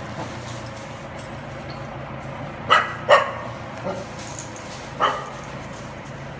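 Welsh corgi barking while herding dairy cows: two short barks in quick succession about two and a half seconds in, a couple of fainter ones, then another bark about five seconds in.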